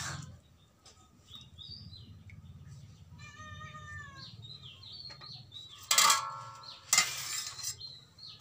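Small birds chirping off and on, with two louder splashes of water, about six and seven seconds in, as small fish are cleaned by hand in a steel bowl of water.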